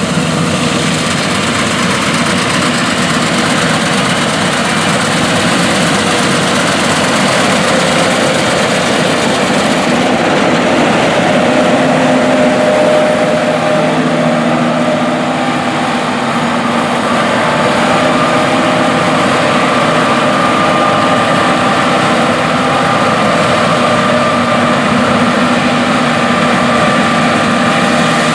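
Large diesel farm machine running steadily in the field, its engine note drifting slightly up and down.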